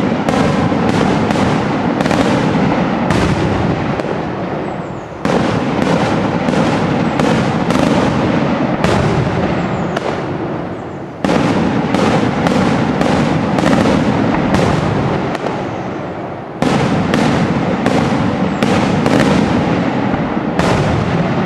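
Daytime aerial fireworks: a dense barrage of bangs from shells bursting overhead, going almost without pause. A fresh, louder volley starts about five, eleven and seventeen seconds in.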